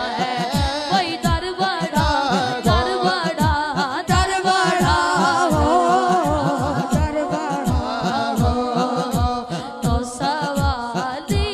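Boys singing a naat, an Urdu devotional song, into microphones, with an ornamented, wavering melody over a steady thumping beat about two to three times a second.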